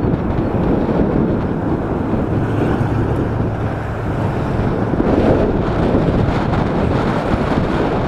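Strong headwind buffeting the microphone of a camera on a moving bicycle: a loud, steady, low rumble of wind noise.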